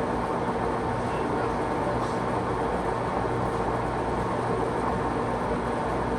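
Large National hollow-spindle engine lathe running under power, its spindle drive and geared headstock giving a steady hum with a constant gear whine.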